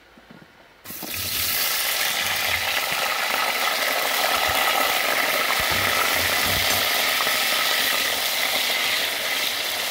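Raw potato sticks, salted and tossed in vinegar, going into hot oil in an aluminium pot: the oil starts a loud sizzle about a second in and keeps frying steadily, with a few dull knocks as the fries are stirred.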